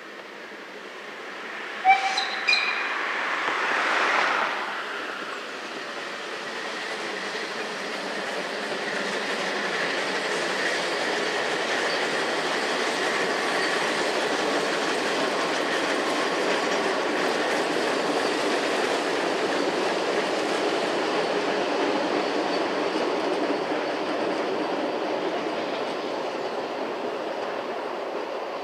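Narrow-gauge steam train: its whistle gives two short toots about two seconds in, then the train rolls past with a steady rumble and clatter of wheels that builds up and fades away near the end.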